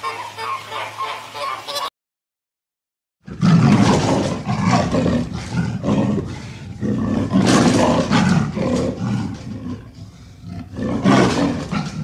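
Flamingos honking and chattering in a flock for about two seconds, then cut off; after a short silence, a big cat growls in loud, rough, repeated bouts, strongest about four, seven and eleven seconds in.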